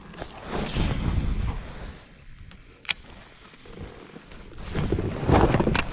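Wind and water noise around a kayak, swelling loudly twice, with one sharp click about three seconds in.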